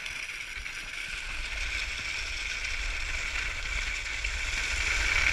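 Skis sliding and scraping over packed snow, a steady hiss that slowly grows louder, over a low rumble of wind on the microphone.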